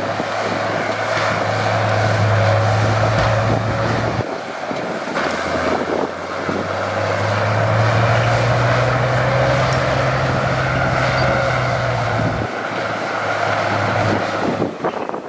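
Diesel engine of heavy earthmoving machinery running under load with a steady low drone. The drone eases off about four seconds in, builds again, and drops away a few seconds before the end.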